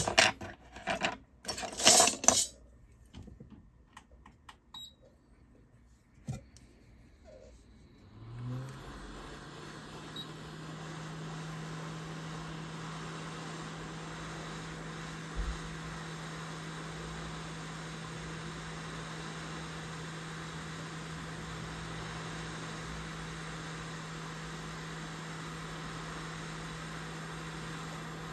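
Clicks and light metallic clatter of tools and small parts being handled, then about eight seconds in a small electric blower starts: a hum that rises briefly in pitch as it spins up, then runs steadily with an even hiss.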